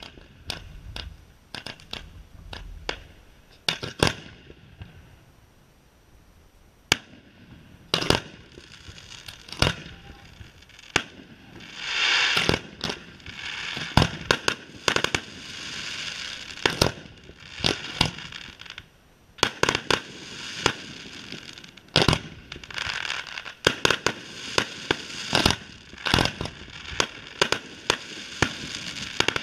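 Fireworks display: aerial shells and multi-shot cakes going off in irregular sharp bangs, with a lull about five seconds in. From about twelve seconds in a dense crackle and hiss fills the gaps between the reports.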